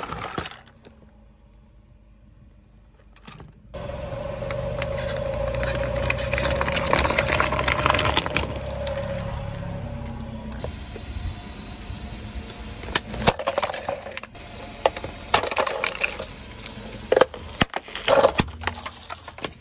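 Car tyre crushing plastic toys and drink cans on asphalt: a series of sharp cracks and crunches. In the middle there are several seconds of steady low rumble from the car.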